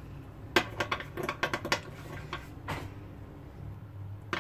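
Metal spoon stirring a thick mayonnaise-and-ketchup sauce in a glass bowl, clinking and scraping against the glass. A quick run of clicks comes about half a second in, then a couple more, and it goes quieter toward the end.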